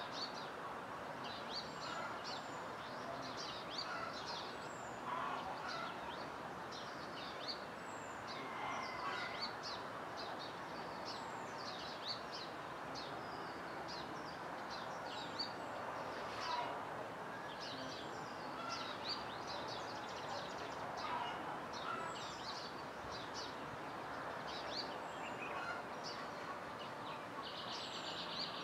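Many small birds chirping and calling at once, a dawn chorus of short, quick notes, over a steady background hiss. A brief rapid trill stands out near the end.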